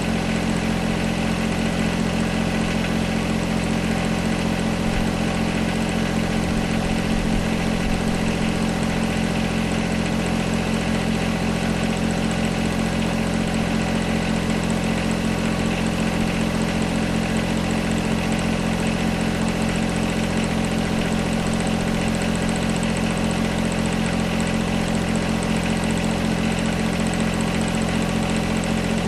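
John Deere 1025R compact tractor's three-cylinder diesel engine running steadily at low throttle, with no change in speed.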